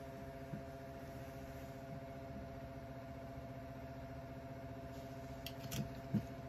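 Steady hum of a Lenovo IdeaCentre K330B desktop computer running while it loads Windows PE files from its boot CD, with a few faint clicks near the end.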